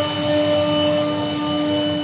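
CNC router running steadily: a constant whine with a few steady pitches over a rough, even noise.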